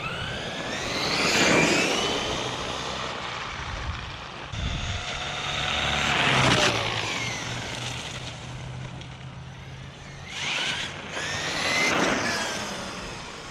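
Traxxas E-Revo 2.0 electric RC monster truck driving, its motor whine rising and falling as it speeds up and slows. It surges three times: about a second in, midway, and again near the end.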